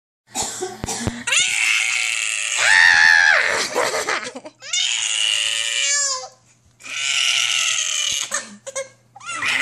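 A baby girl screaming and squealing in play, cracking up with laughter between the shrieks. She gives about four long, high-pitched shrieks with short breaks between them.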